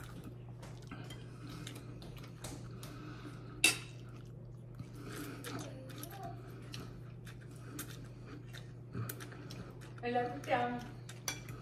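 Metal fork and spoon clinking and scraping against a ceramic bowl as a man eats noodles, with many small clicks and one louder clink about three and a half seconds in. A short voice is heard near the end.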